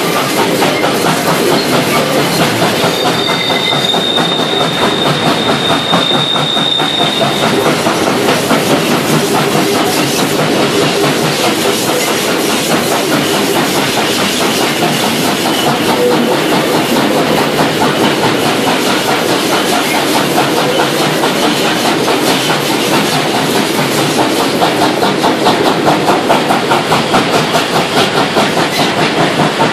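Steam train under way uphill: a steady, rapid rhythm of exhaust beats and wheel clatter on the rails, heard from on board. A thin high squeal, typical of wheel flanges on a curve, sounds for a few seconds near the start.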